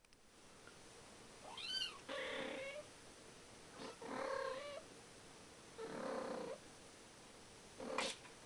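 A cat meowing repeatedly. A high meow rises and falls about one and a half seconds in, followed by longer calls roughly every two seconds and a short sharp one near the end.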